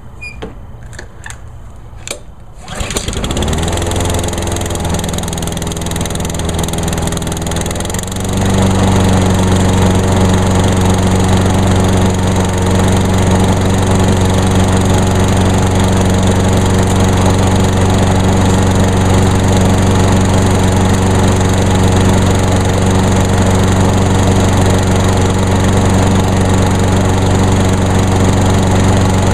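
A Honda GCV160 single-cylinder overhead-cam engine on a walk-behind lawn mower starts after a few clicks and catches about three seconds in. It first runs at a lower speed that slowly climbs, then about eight seconds in it jumps to a louder, steady higher speed and holds there.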